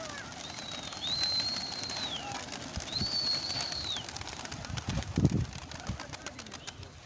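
A flock of pigeons taking off, wings fluttering and clattering, with two long high whistles in the first half. A few heavy thumps come about five seconds in, the loudest moment.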